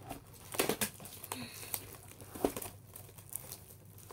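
Clear plastic shrink-wrap crinkling and tearing as it is pulled off a cardboard trading-card box, in a few short, irregular rustles.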